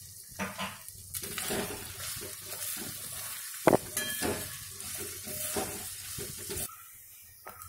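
Onions, dried red chillies and turmeric sizzling in hot oil in a steel kadai while a metal spatula stirs and scrapes them against the pan, with one sharp clink about halfway. The sizzle drops away near the end.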